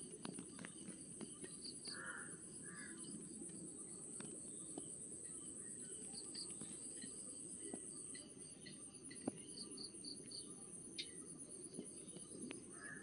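Faint ambience with a steady, high-pitched insect trill, joined by a few brief faint chirps and ticks.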